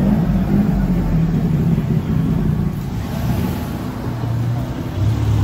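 Street traffic: motor vehicle engines running close by, a low steady hum over road noise, with a deeper, louder engine coming in about five seconds in.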